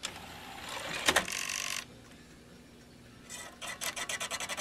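DVD player's disc tray drawing a DVD-R in, with a knock about a second in as the disc seats. About three seconds in, the drive mechanism starts a rapid, even clicking and scraping rhythm. This is the 'horrible noise' of a failing drive as it tries to spin up and read the disc.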